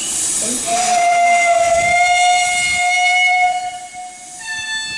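Steam locomotive's whistle blown in one long, steady blast of about three seconds over the hiss of escaping steam. A second, slightly higher tone starts near the end.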